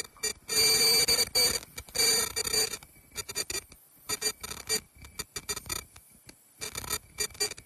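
High-speed shower cap making machine running: a loud, high-pitched ringing whine for the first two and a half seconds or so, then quick, irregular clicking and knocking from the mechanism as it cycles.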